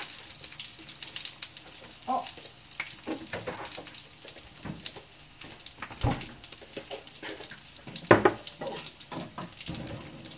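Dumplings sizzling as they fry in oil in a pan, with scattered clicks and clatter of kitchen utensils and a few louder knocks, about 2, 6 and 8 seconds in.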